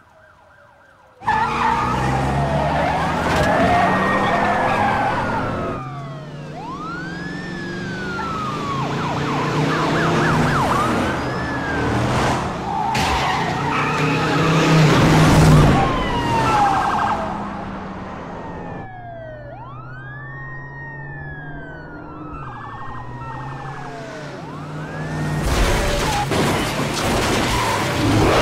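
Police car sirens wailing, rising and falling over and over, with car engines running hard in a high-speed chase; the sound cuts in suddenly about a second in. Near the end tyres screech as the fleeing car spins out.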